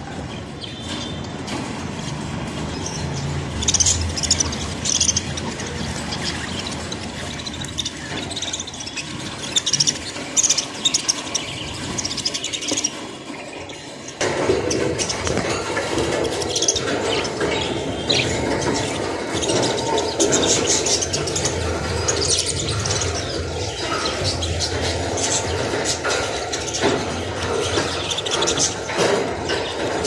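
A flock of budgerigars chirping and chattering continuously, with many short high calls overlapping. About halfway through, the chatter becomes denser and louder.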